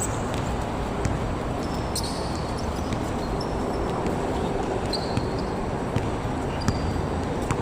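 A basketball bouncing on a court during a game, with scattered sharp knocks and a few short high squeaks over a steady background noise.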